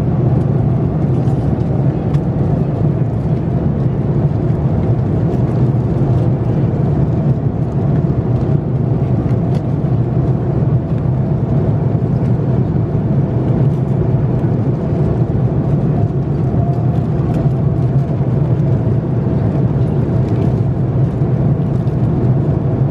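Steady in-flight cabin noise of an Airbus A330-200 airliner: a constant low rumble of engines and airflow. Faint crinkles of plastic food and cutlery wrappers being handled come through it here and there.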